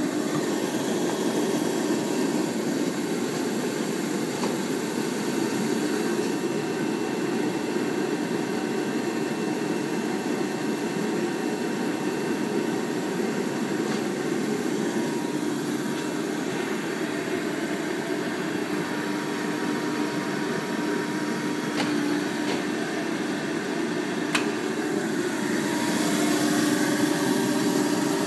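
Steady hum of an Adira upstroking hydraulic press brake's pump running, with a constant low tone, a couple of faint clicks later on, and a slight rise in level near the end.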